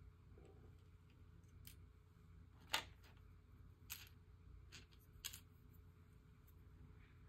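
A few short, light clicks against quiet room tone, the loudest about three seconds in and fainter ones over the next two and a half seconds.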